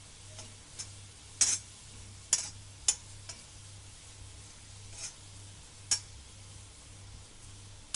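Chopped garlic frying in butter in an iron karahi, a faint steady sizzle. A metal utensil stirring it clicks and scrapes sharply against the pan about five times.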